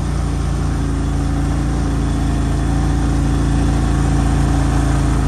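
ATV engine running at a steady low speed while riding, a constant hum that grows slightly louder.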